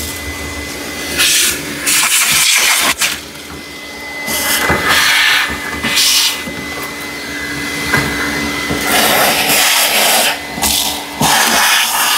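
Shop vacuum running with its hose nozzle worked over a broken dashboard, sucking up loose debris. A steady motor whine sits under rushing air that swells and drops every second or so as the nozzle moves and meets the surface.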